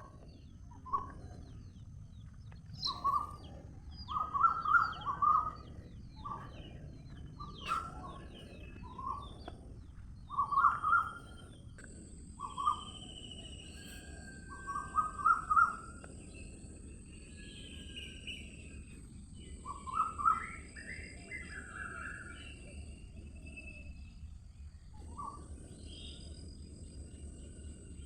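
Several birds calling: a short call repeated every second or two, with other higher-pitched calls among it. A steady high hiss runs beneath from about halfway through.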